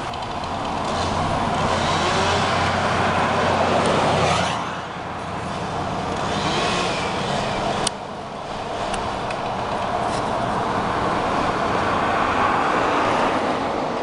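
Motor vehicle noise, engine and road sound, that swells and then falls away about four and a half seconds in, before settling into a steady run. A single sharp click sounds near eight seconds.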